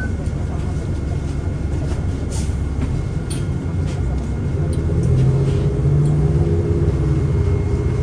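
Inside a moving city bus: steady engine and road rumble with scattered rattles and clicks. About five seconds in, an engine drone comes up and the rumble grows louder.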